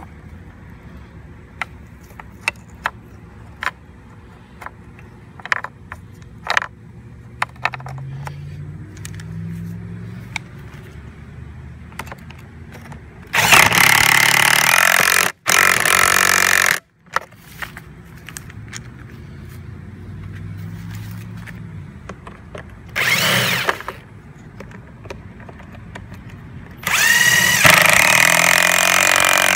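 Power drill-driver running in short bursts as it drives bolts into a lawn mower's cover: two bursts about halfway through, a brief one a little later, and a longer one near the end with a rising whine. Small clicks of bolts and parts being handled come between the bursts.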